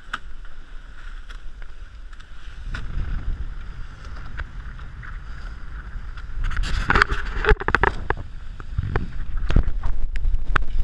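Wind on the microphone and water rushing past the hull of a Marstrom 32 racing catamaran under sail, the rumble growing louder about three seconds in. Sharp knocks near the end as the camera is handled.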